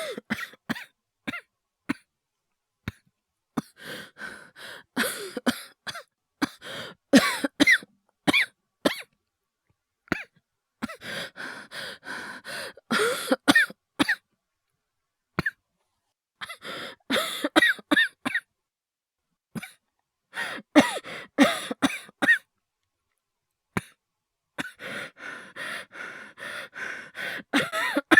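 A voice actor's acted coughing fits: runs of rapid, harsh coughs mixed with strained breaths, in about five bouts separated by short silent pauses.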